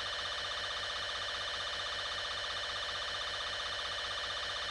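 Emergency alert attention tone: a steady electronic alarm with several pitches sounding together and a fast regular ripple, unbroken throughout. It is the alert signal of a simulated nuclear missile warning.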